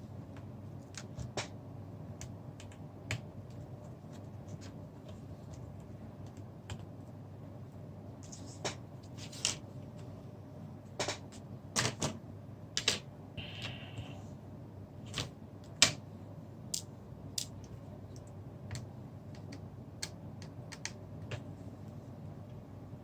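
Irregular small clicks and taps of a precision screwdriver and tiny screws as the screws holding an LG G2 smartphone's inner frame are taken out, over a low steady background hum.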